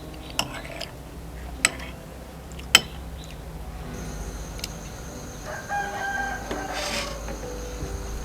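A rooster crowing once, from about five and a half seconds in for a little over a second. Three sharp clicks come before it, and a thin steady high tone runs under its second half.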